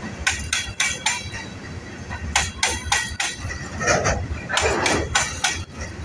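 Freight train's coal hopper wagons rolling past, their wheels clacking over rail joints in quick groups of sharp metallic knocks over a low rumble.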